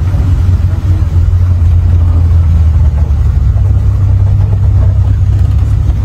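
Vehicle engine running steadily with a deep, even hum, heard from on board a shuttle vehicle moving along a concrete road.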